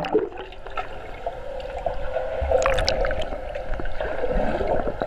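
Swimming pool water heard through a submerged action camera: muffled bubbling and gurgling with a steady hum and a few faint clicks.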